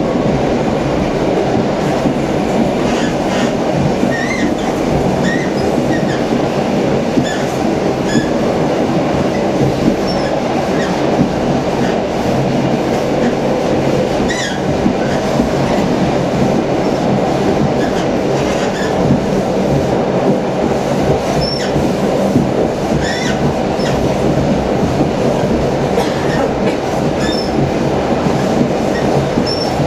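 Passenger train coach running at speed, heard from inside: a steady rumble of wheels on rails, with short high squeaks now and then.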